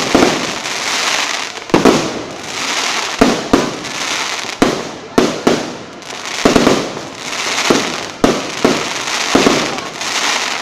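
Fireworks going off in quick succession: about a dozen sharp bangs, roughly one a second, each followed by a loud hissing crackle.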